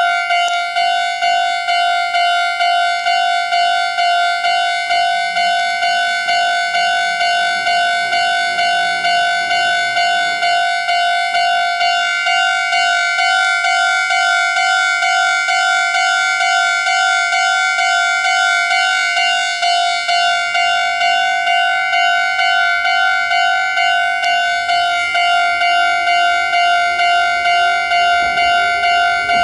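Japanese railway level-crossing warning bell ringing: a steady electronic ding repeated at about two strokes a second. A faint rising whine comes in underneath near the end.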